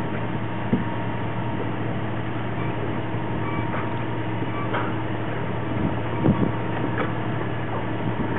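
A boat engine idling with a steady hum, with a sharp knock about a second in and a few bumps near the end.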